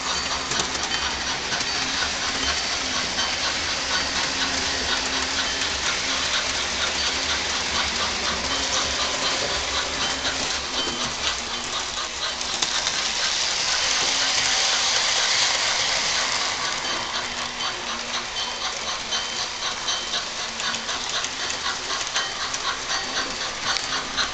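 Model train running on its track: a steady rush of fine, fast clicking from wheels and motor, swelling into a louder hiss for a few seconds around the middle.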